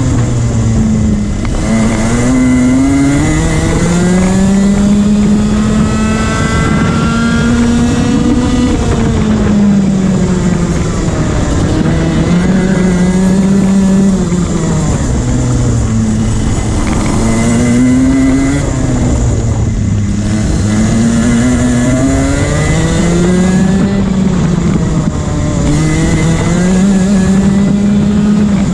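Rotax 125cc two-stroke kart engine heard from on board, its note climbing as it accelerates along the straights and dropping as it slows for the corners, several times over the lap.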